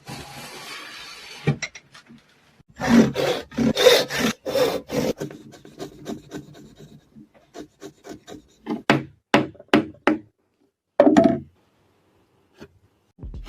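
Hand tool scraping and rasping on wood in repeated back-and-forth strokes, about three a second. It opens with a steady scrape of about a second and a half, the heaviest strokes come a few seconds in, and lighter ones follow, with a short pause between runs.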